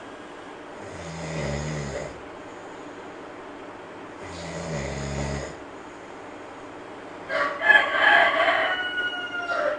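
A sleeping monkey snoring: two low snores about three seconds apart, then a louder, higher-pitched call of about two seconds near the end.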